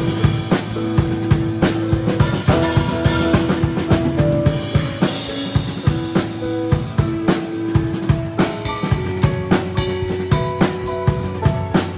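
Live praise-band song played on a drum kit, with kick, snare and cymbal hits in a steady beat over sustained bass and keyboard notes. A cymbal wash builds up in the middle of the passage.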